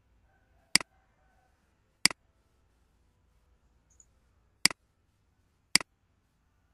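Computer mouse button clicked four times at uneven intervals, each a sharp click with a quick press-and-release double snap.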